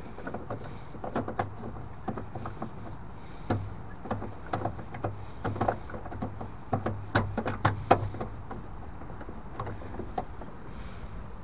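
Screwdriver tightening the bottom screw of a boiler diverter valve: irregular small clicks and knocks of the tool on the screw and the valve's fittings, busiest in the middle.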